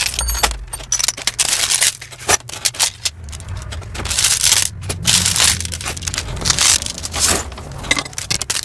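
Handfuls of costume jewelry being handled and sorted, with irregular clinks, scrapes and rustles of small metal pieces and packaging.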